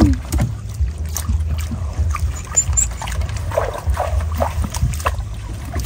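Water trickling and splashing with scattered light knocks, over a steady low hum.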